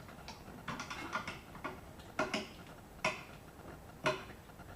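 Irregular metallic clicks and clinks of hand tools on a fastener as a part is unbolted, in short clusters about once a second.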